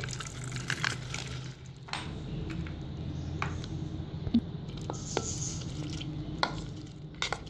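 Metal spoon scraping and clicking against a ceramic plate as soaked mash (urad) lentils are pushed off it and slide wetly into a glass blender jar; irregular clicks over a steady low hum.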